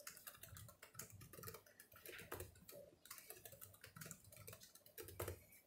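Typing on a ThinkPad X1 Carbon Gen 7 laptop keyboard: a quick, irregular run of quiet key clicks.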